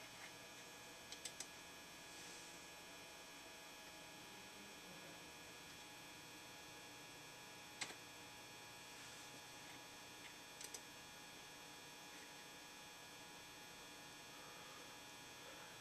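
Near silence: a steady faint electrical hum, with a few soft clicks about a second in, near the middle and again a little later.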